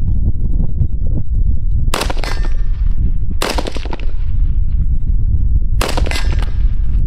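Three rifle shots from an AR-15 firing 5.56 M855 green-tip rounds, the second about a second and a half after the first and the third about two and a half seconds later, each with a short echoing tail. A steady low wind rumble on the microphone runs underneath.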